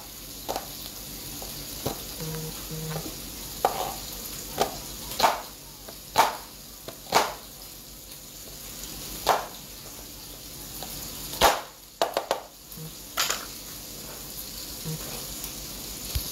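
Kitchen knife slicing onion against a plastic cutting board: sharp knocks at an uneven pace, roughly one a second. Under them runs a steady sizzle of liver frying in a pan.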